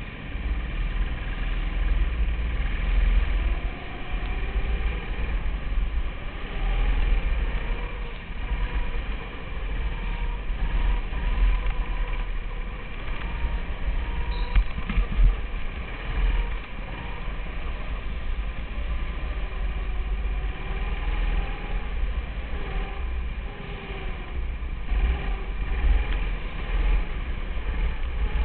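A 200cc Honda four-stroke go-kart engine heard from on board during a lap, its pitch rising and falling over and over as it accelerates and eases off, over a heavy low rumble.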